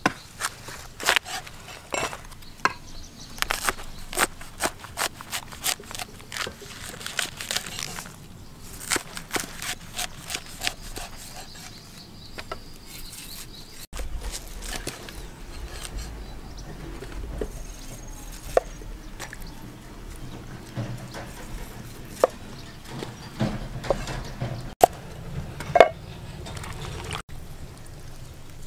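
Cleaver chopping a banana flower on a wooden chopping board: a quick run of knocks, then slower, scattered cuts with a low rumble under them in the second half.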